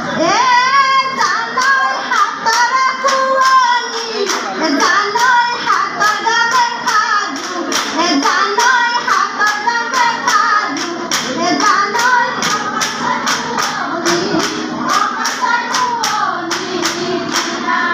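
Women's group singing an Assamese Jeng Bihu song, with a steady clapping beat of about three claps a second that comes in about a second in.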